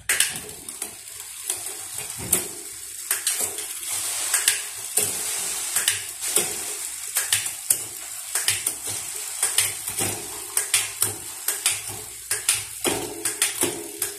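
Irregular metallic clinks and clatter from tools and bicycle drivetrain parts being handled during mechanical work on a bike, over a steady hiss.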